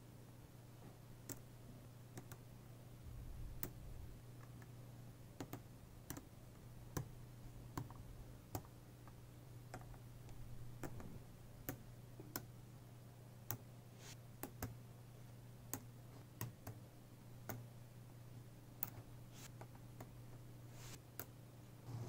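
Small neodymium magnet balls clicking as clusters of them are snapped onto and handled on a sphere of magnet balls: irregular sharp clicks, roughly one a second, over a faint low hum.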